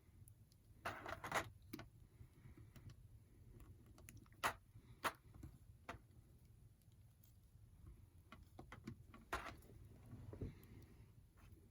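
Faint, scattered clicks and taps of a plastic action figure being handled: a few sharp clicks about a second in, two more around the middle and one near the end.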